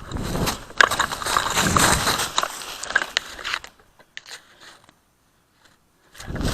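Close rustling and crunching with many sharp clicks and snaps, like a person moving through dry undergrowth right at a body-worn camera's microphone; it thins to a few clicks after about three and a half seconds, falls away, and starts again near the end.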